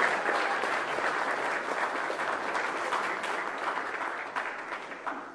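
Congregation applauding, the clapping slowly dying away and stopping just before the end.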